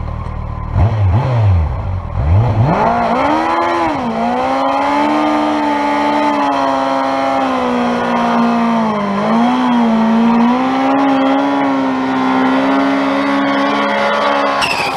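An engine revving hard: its pitch dips and climbs a few times, then holds high and nearly steady with small wobbles before cutting off abruptly.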